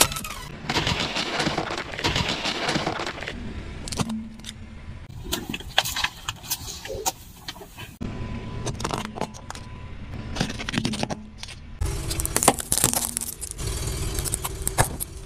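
A car tyre rolling slowly over small plastic objects and crushing them, with a series of sharp cracks, snaps and crunches over the car's low rumble. The sound changes abruptly several times as one object gives way to the next. A red plastic hair claw clip and a row of disposable lighters are among the things crushed, and the densest cracking comes near the end.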